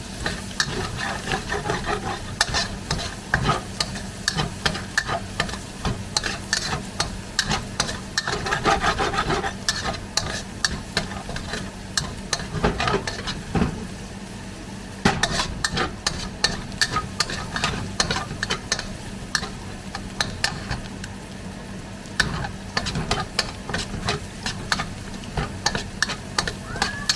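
Garlic sizzling in hot oil in a pan while a utensil stirs it, with frequent clicks and scrapes against the pan. The stirring pauses briefly about halfway through.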